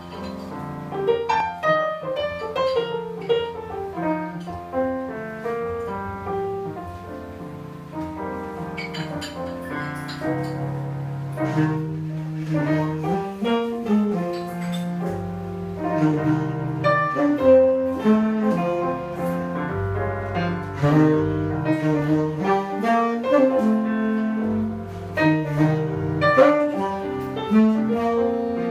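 Live jazz: a keyboard piano playing with a saxophone, the piano carrying much of the line while the sax plays held notes.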